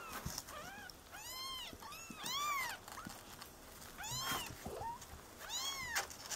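Two-week-old kittens mewing: about eight short, high-pitched calls, each rising and then falling in pitch.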